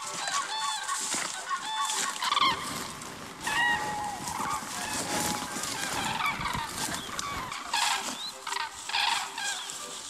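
A flock of common cranes calling, many trumpeting calls repeated and overlapping. Under them, the rustle of footsteps and a bundled tent pushed through dry undergrowth in the middle of the stretch.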